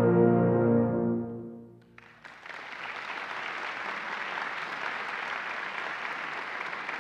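Tuba and euphonium choir holding its final chord, which dies away about a second and a half in. After a brief hush the audience breaks into steady applause.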